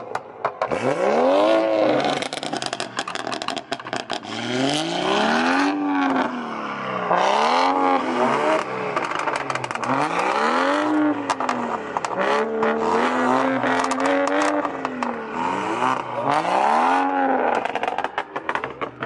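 Loud aftermarket exhausts of a tuned Alfa Romeo Giulia four-cylinder and a BMW F30 being revved hard in repeated blips, about seven rises and falls of the revs, one held a little longer near the middle. Crackles and pops come as the revs drop.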